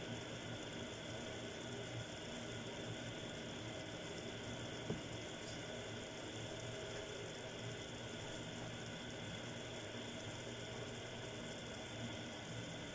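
Seafood mix of prawns, mussels and calamari simmering in a pan on raised heat, a steady, quiet bubbling hiss, with one small click about five seconds in.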